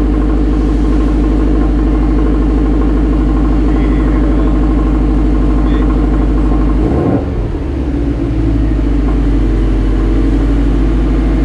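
Subaru WRX STI's turbocharged flat-four running through a newly installed AWE Touring cat-back exhaust, idling steadily with a deep rumble. The note dips briefly about seven seconds in, then settles back.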